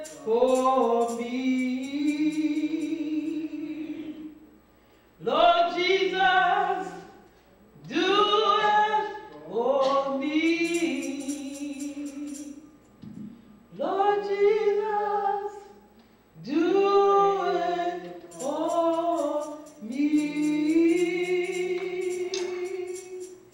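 Woman singing a gospel solo into a handheld microphone, in phrases of a few seconds with long held notes and short pauses between.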